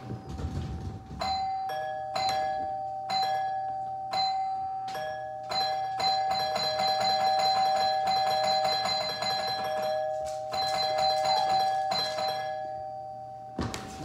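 Two-tone ding-dong doorbell chime rung over and over in quick succession, the strikes crowding into almost continuous ringing in the middle and stopping shortly before the end.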